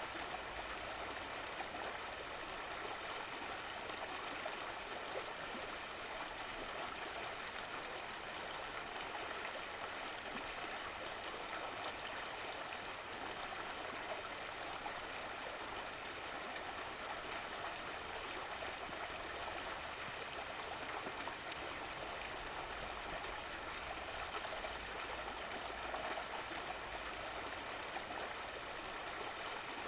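Running water flowing steadily, an even rushing sound with no pauses or changes.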